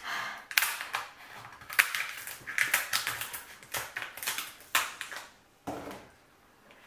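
Kitchen shears snipping through a cooked lobster tail's shell: an irregular run of sharp crunching snips and cracks for about five seconds, dying away near the end.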